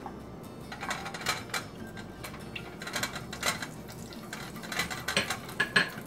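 A utensil scraping and tapping against a non-stick frying pan in repeated short strokes as a pat of butter is pushed around in hot olive oil, over a steady sizzle of the butter melting and foaming.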